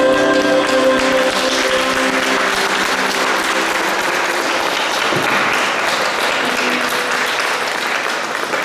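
The last sung note and acoustic guitar chord fade out over the first few seconds as people break into applause, which then carries on steadily.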